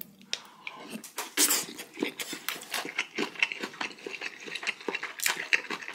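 Close-miked chewing of a mouthful of rice topped with raw yellowtail sashimi: a run of irregular mouth clicks and smacks, about three or four a second.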